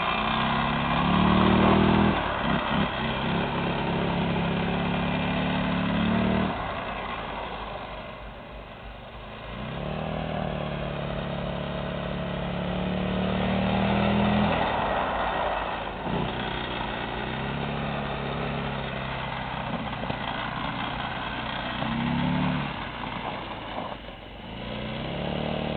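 ATV engine revving hard in long bursts of several seconds, about five times, dropping back between them as the wheels spin on ice doing burnouts.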